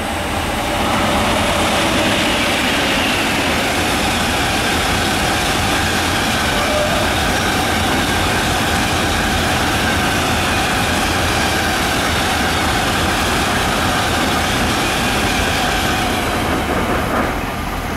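Freight train of covered steel-coil wagons, hauled by SNCF BB 27000 electric locomotives in multiple, passing close at speed: a loud, steady rumble of wheels on rails that swells about a second in and eases slightly near the end as the last wagons go by.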